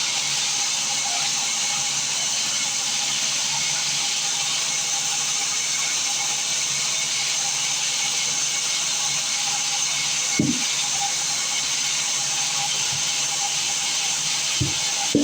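Steady hissing machine noise with a faint low hum, broken by a short knock about ten seconds in and two more near the end.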